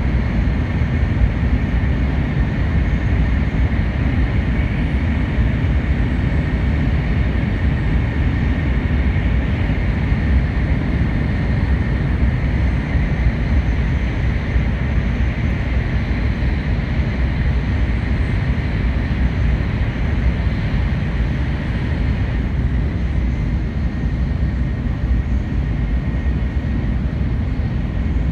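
N700 series 8000 Shinkansen running at speed, heard from inside the passenger car: a steady low rumble of wheels and air noise with a thin, steady high tone above it.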